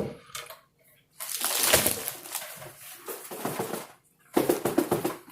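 Gift packaging being handled and opened: rustling and crinkling in two bouts, a longer one starting about a second in and a shorter, choppier one near the end.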